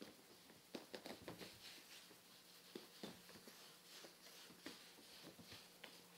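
Kittens' claws scratching and catching on a fabric curtain and sofa upholstery as they climb and scrabble: faint, irregular scratches and small ticks.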